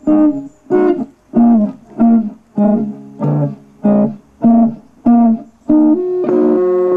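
Electric guitar playing about ten short, evenly spaced chord stabs, then a held chord that rings on near the end.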